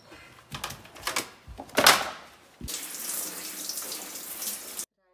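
A few loud rustles and thumps, the loudest about two seconds in, then a shower head spraying water in a steady hiss from about halfway, cut off abruptly near the end.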